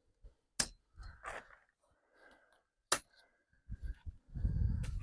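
Tent hooks being snapped onto the tent poles: two sharp clicks with rustling between them, and a louder low rustle near the end.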